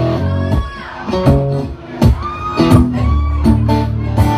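Acoustic guitar strummed live through a PA, chords strummed about twice a second with the notes ringing between strokes: the opening of a song.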